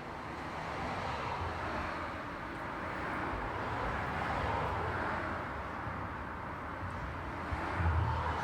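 Road traffic: a continuous hiss of tyres and engines from passing vehicles, swelling as they go by and easing off again, with a deeper rumble rising near the end.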